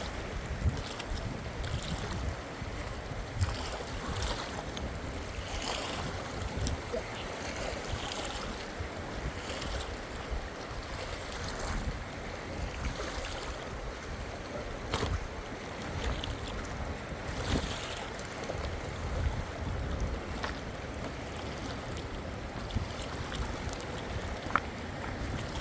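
Strong wind buffeting the microphone in gusts over water washing and lapping, with a few short knocks.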